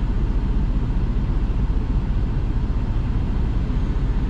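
Steady low rumble of a semi-truck's diesel engine and road noise while driving.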